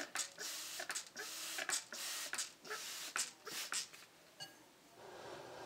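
Plastic trigger spray bottle misting a houseplant's leaves: a quick series of short hissing sprays, about two a second, which stops about four seconds in.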